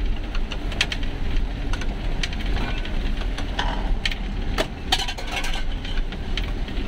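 Motorhome bus driving slowly over a rough, muddy off-road track: steady low engine and road rumble with frequent clicks and rattles as the vehicle jolts over the uneven ground.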